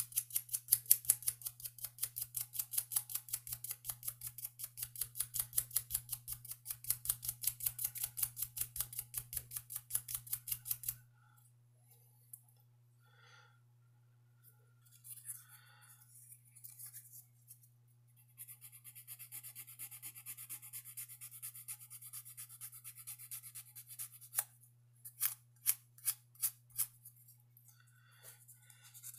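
Coarse sandpaper rubbed by hand in quick back-and-forth strokes against a slipjoint pocketknife, about three strokes a second, as the first coarse pass of a restoration. The strokes stop about eleven seconds in. After a pause they resume more lightly, and a few sharper strokes come near the end.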